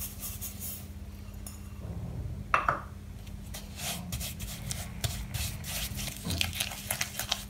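Granulated sugar poured onto softened butter in a glass bowl, then a silicone spatula scraping and mashing the butter and sugar together against the glass in quick, irregular strokes, with one louder stroke about two and a half seconds in.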